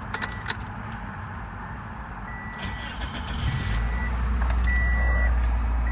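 A 2007 Toyota Corolla's 1.8-litre four-cylinder engine is started on its first run after an oil change: a few key clicks, a short crank about three and a half seconds in, then the engine catches and settles into a steady idle. A dashboard warning chime beeps repeatedly throughout.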